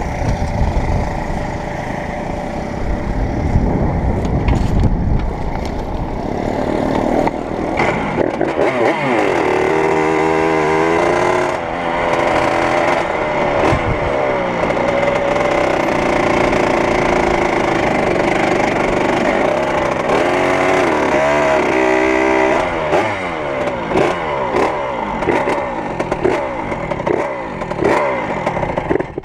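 1978 Yamaha YZ80's single-cylinder two-stroke engine, heard from the rider's seat while riding, revving up and easing off again and again. There is rattling from the bike, loudest in the first several seconds.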